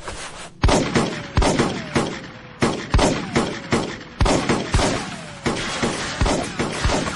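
Gunfight sound effects: about a dozen sharp gunshots at irregular intervals, one or two a second, several of them trailed by a falling whine.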